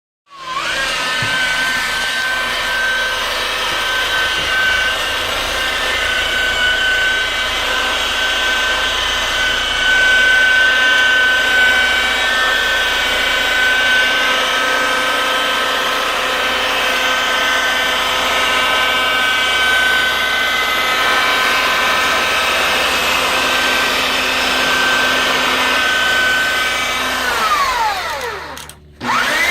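Electric power tool motor running at a steady speed with a high whine. Near the end it winds down to a stop, then spins up again just after.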